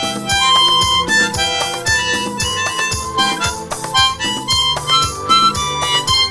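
Harmonica played into a microphone: a quick melody of short, changing notes over a regular low beat.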